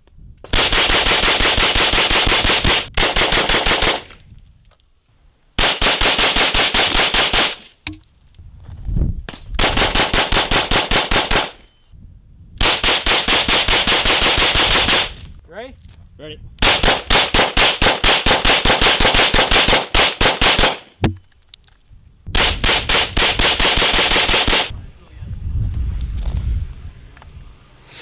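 Kriss Vector CRB pistol-caliber carbine firing rapid strings of shots: about eight strings of one to three seconds each, with short pauses between them.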